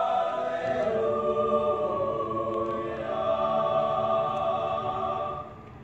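Mixed-voice madrigal choir singing held chords, closing on a final chord that is cut off near the end: the end of the piece.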